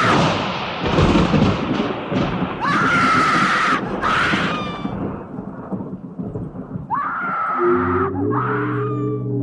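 Thunderstorm sound effect, rumbling thunder over heavy rain, with four screams of about a second each cutting through it. A low, steady synth chord comes in near the end as the track's music begins.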